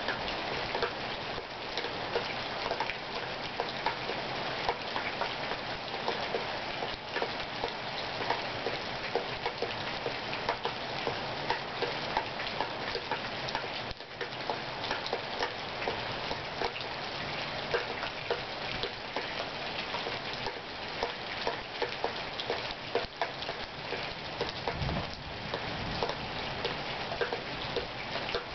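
Steady rain from a passing thunderstorm, with many individual drops ticking close by through the hiss. A short low rumble comes near the end.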